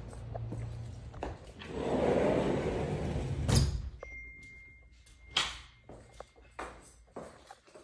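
Sliding glass patio door rolling along its track for about two seconds, then knocking shut against its frame. A few light clicks follow.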